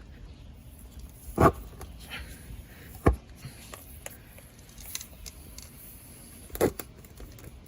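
Tire plug kit's spiral rasp tool being worked in and out of a puncture in the tread to roughen the hole for the plug, with three dull knocks, the sharpest about three seconds in.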